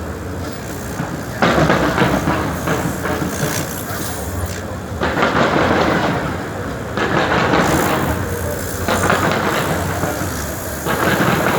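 Fireworks going off: waves of dense crackling noise that start suddenly about five times, with scattered sharp pops.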